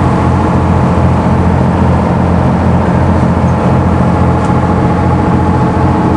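A fishing boat's engine running steadily while underway, heard from the deck as an even, low drone that does not change.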